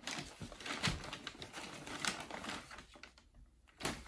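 Tissue paper rustling and crinkling in a cardboard shoe box as a boot is unwrapped and lifted out, a quick irregular crackle of small clicks. A sharper knock comes near the end.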